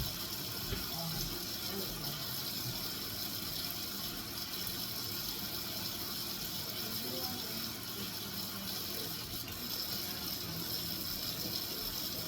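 Kitchen tap running steadily, water pouring into a sink.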